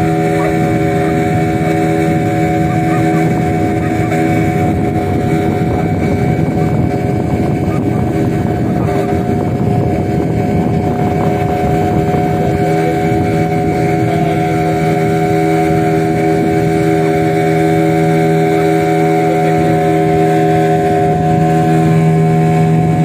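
A motorboat's engine running steadily at an even pitch, with no change in speed.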